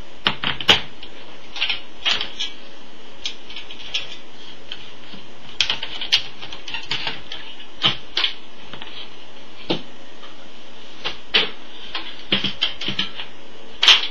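Irregular clicks and light knocks from handling an LCD monitor's metal back plate, its screws and connectors while it is being taken off, over a steady hiss.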